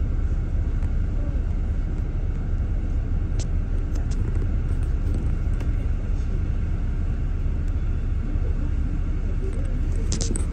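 Steady low rumble of a double-decker bus's engine and running gear, heard from inside the upper deck as the bus moves slowly in traffic, with a few light clicks near the end.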